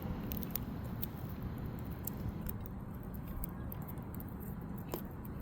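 Light handling noise as fireworks are fitted together by hand: a few sharp small clicks and rustles over a steady low background hum.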